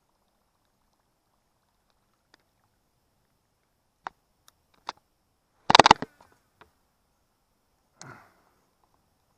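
Scattered sharp knocks, then a short, loud clatter of rapid clicks about six seconds in, and a brief rustle near the end.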